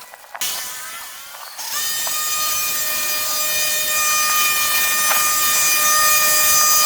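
Chainsaw running at high revs: it starts abruptly about half a second in and settles into a steady, high-pitched note from about a second and a half on.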